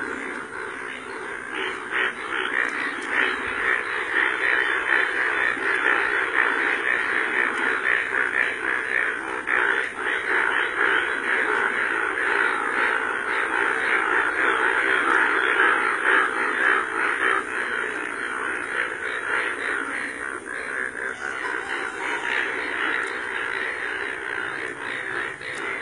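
A dense chorus of many Indian bullfrogs calling together in a flooded field: loud calls overlapping without a break. These are breeding males, bright yellow in the monsoon mating season.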